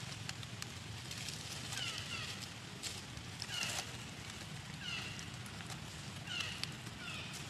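Short, high, falling chirping calls from a small animal, often in pairs, repeating every second or so, with faint rustling and clicks of dry leaves underneath.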